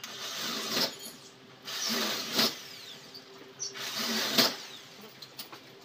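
Cordless drill driving screws into the door's edge in three short runs of about a second each, each ending in a sharp click.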